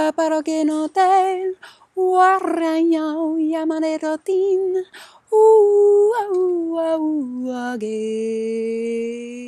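A woman singing wordless, invented syllables in a chant-like 'light language' vocalisation. Short notes with a wavering vibrato come first. About five seconds in she moves to longer held notes that step down in pitch and settle on a long low tone near the end.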